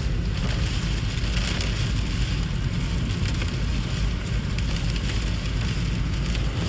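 Steady rushing noise with a deep low rumble underneath.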